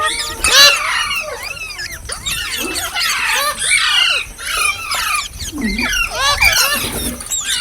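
Green parrots chirping and squawking: a continuous run of shrill, short calls that sweep up and down in pitch, many of them overlapping.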